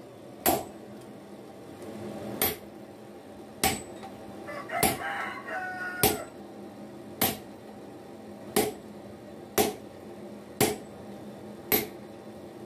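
Sledgehammer blows on hot leaf-spring steel, about nine ringing strikes at roughly one a second, as the steel is split by hand with a hammered tool over the anvil. A rooster crows once about five seconds in.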